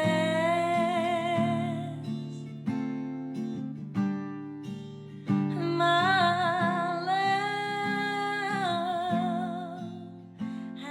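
Background music: a singing voice holding long notes with vibrato over strummed acoustic guitar chords.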